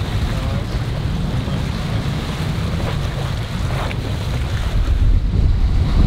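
Wind buffeting the microphone over the rush of open-ocean waves and water along the hull of a sailing catamaran under way. The wind gets louder near the end.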